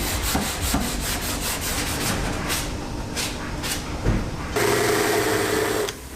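Repeated rasping strokes of hand sanding on car bodywork, about three a second. About four and a half seconds in, a steadier machine sound with a steady tone runs for over a second.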